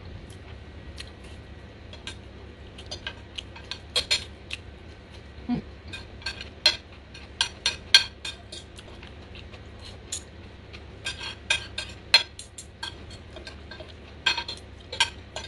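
Metal spoon and fork clinking and scraping on a ceramic plate while rice is gathered and scooped, in quick irregular taps that come in clusters.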